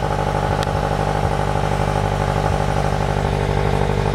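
Scion FR-S's 2.0-litre flat-four engine idling steadily, its exhaust running through a freshly fitted Tomei unequal-length header and the stock exhaust.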